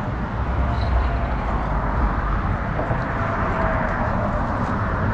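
Steady low rumble of road traffic on the bridge, with no single sound standing out.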